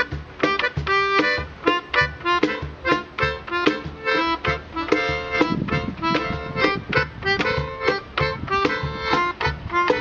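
Melodica played through its mouth tube in short held-note phrases, over a Peruvian cajón slapped by hand in a steady rhythm of low thumps; an improvised duet.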